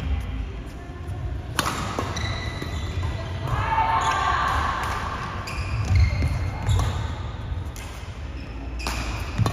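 Badminton rally: a few sharp racket strikes on the shuttlecock, one about one and a half seconds in and another near the end, with sports shoes squeaking on the court floor and thudding footsteps in between.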